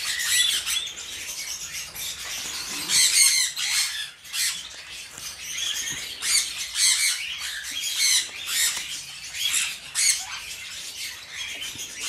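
Aviary parrots squawking and chirping: many short, harsh, high calls overlapping one another, some louder than the rest.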